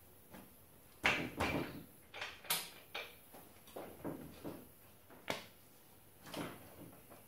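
Irregular knocks and clunks, about ten over several seconds, as the rear wheel spindle of a motorcycle is tapped home through the swing arm and wheel hub with the heel of the hand rather than a hammer.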